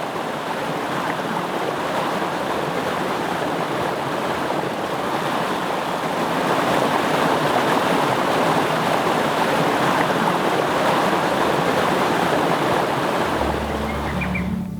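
Mountain valley stream rushing in a steady, loud wash of water. Near the end, soft music and a few bird chirps come in over it.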